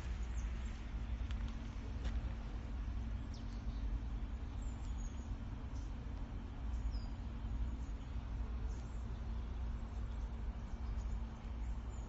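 Outdoor woodland background: a steady low rumble with a few faint, high bird chirps, one about five seconds in and another about seven seconds in.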